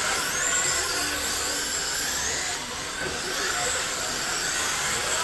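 Several radio-controlled dirt oval race cars running laps together. Their motors whine at several high pitches at once, each rising and falling as the cars accelerate down the straights and back off into the turns, over a steady hiss.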